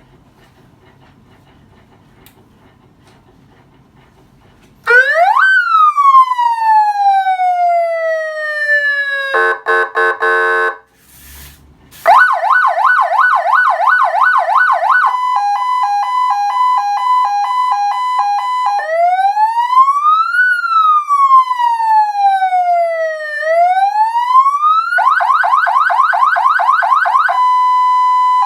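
Electronic vehicle siren cycling through its tones. After a few quiet seconds it sweeps up and slowly falls, gives a short horn blast, then a fast yelp, a hi-lo two-tone, a slow rising and falling wail, the fast yelp again and a slow hi-lo.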